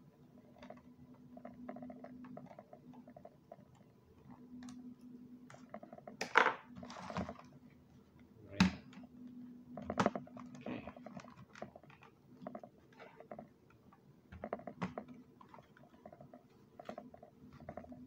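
Handling noise from a plastic Dell laptop being screwed shut, turned over and set down with its lid opened: scattered clicks and taps, with several louder knocks between about six and ten seconds in.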